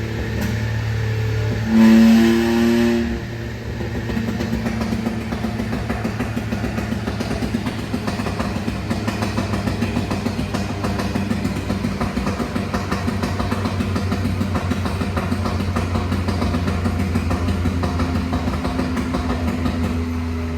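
VW Up MPI's 1.0 three-cylinder engine, remapped with a crackle map and running with the exhaust cutout open: a brief rev about two seconds in, then continuous rapid crackling and popping from the exhaust while it runs on its own.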